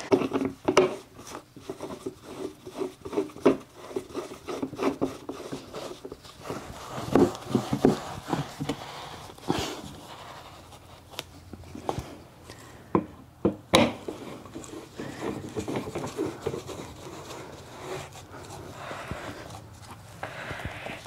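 A cat tree being assembled by hand: scattered knocks, clicks and rubbing as carpet-covered posts are handled and twisted into a plush platform.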